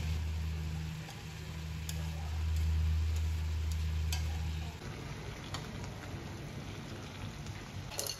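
Noodles and cabbage sizzling in a frying pan, with scattered pops and crackles, over a low steady hum that stops about halfway through.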